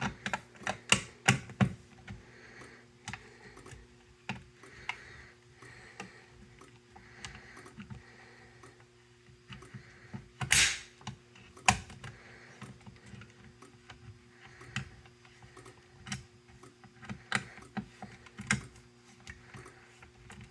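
Irregular sharp clicks and light knocks, the loudest a little past halfway, over a faint steady hum and a soft tone that pulses about once a second.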